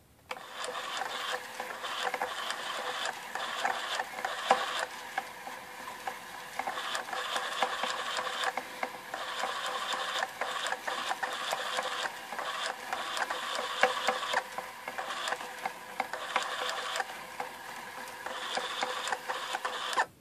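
An Electric Eel Wheel electric spinning wheel running, its motor turning the flyer and bobbin with a steady whir and an irregular clatter of clicks. It switches on just after the start and off just before the end.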